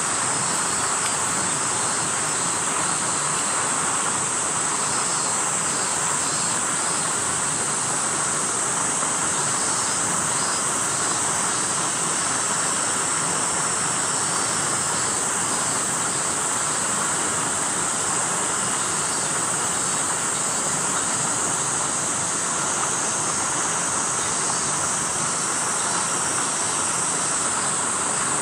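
Steady chorus of summer cicadas, a continuous high shrill, over an even rushing hiss.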